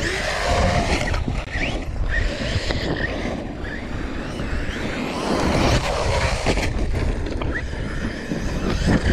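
Traxxas Sledge RC monster truck's electric motor whining in short rises and falls as it drives over dirt, under steady wind rumble on the microphone.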